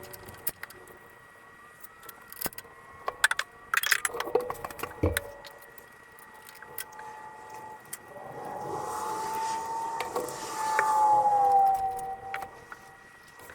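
Metal hand tools and car parts clinking and knocking in short, scattered clicks. In the second half a louder passage comes in, with a wavering tone that rises slightly and then falls.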